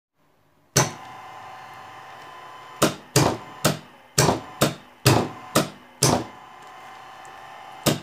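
Magnetic contactors in a three-phase motor control circuit clacking in and out as the push buttons are worked, about ten sharp clacks in irregular succession. A steady hum starts with the first clack and stops with the last.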